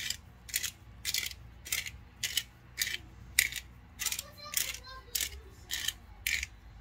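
Hand-twisted spice grinder grinding Italian seasoning over a raw steak: a regular run of short crunching clicks, about two a second.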